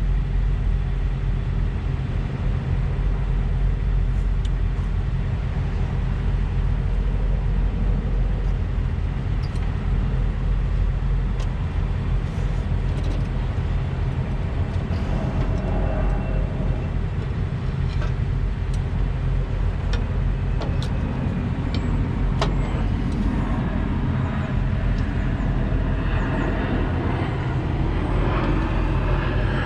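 A diesel truck engine idling steadily, a constant low rumble, with a few sharp metallic clicks of tools scattered through it.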